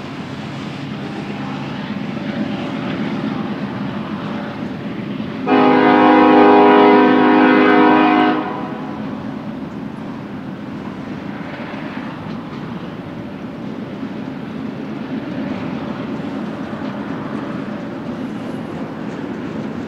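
Freight train cars rolling past with a steady rumble and rattle. About five seconds in, a diesel locomotive's multi-chime air horn sounds one blast of roughly three seconds.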